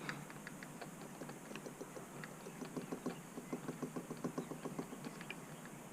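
Faint light mechanical clicking from small metal parts being handled and turned, a few clicks a second, thickest in the middle stretch.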